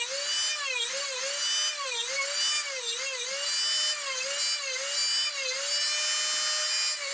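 Dremel rotary tool with an abrasive cutoff disc grinding the point of a brad point into a metal drill bit. Its high whine dips in pitch and recovers about twice a second as the disc bites into the bit and lets go, with a short steady stretch of free running near the end.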